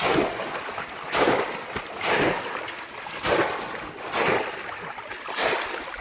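Water splashing and sloshing in regular strokes, about one a second.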